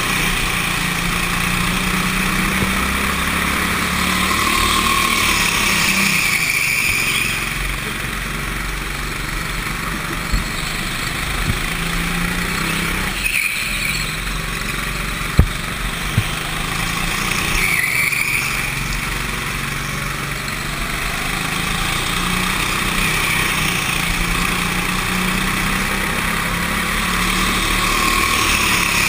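Rental go-kart engine running under throttle, its note swelling and dipping every few seconds as the kart accelerates down the straights and eases off into the corners. A few short, sharp knocks come through around the middle.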